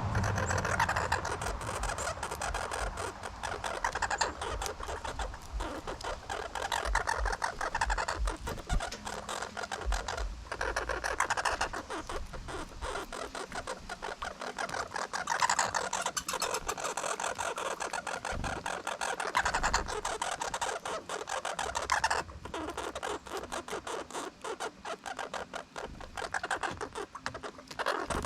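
A squirrel close by, making a dense run of rapid clicking, crunching and scratching sounds that keeps up with small breaks.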